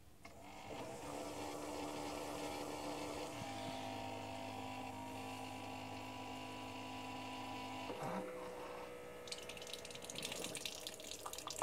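Keurig single-cup coffee brewer's pump running as it brews, a steady hum that shifts pitch about three seconds in and again about eight seconds in. Near the end, coffee streams and spatters into the mug.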